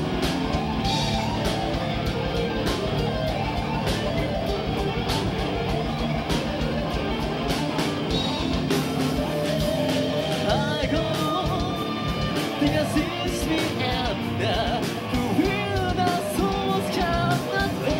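Live power/prog metal band playing: distorted electric guitars, bass and drum kit, with a singer's voice coming in about halfway through.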